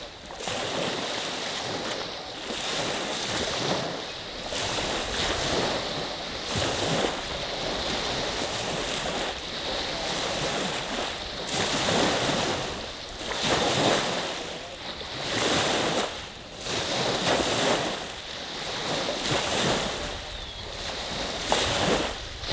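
Small waves from Lake Huron's Saginaw Bay washing onto a sandy beach, the surf swelling and fading every second or two, with some wind on the microphone.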